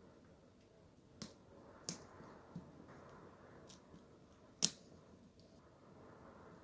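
Paper being handled: faint rustling with four sharp clicks or taps, the loudest a little over halfway through.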